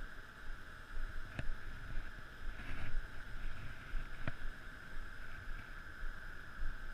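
Background noise of an aluminium fishing boat sitting on a river: a low rumble of water and wind with a steady high hum, broken by two sharp knocks about three seconds apart.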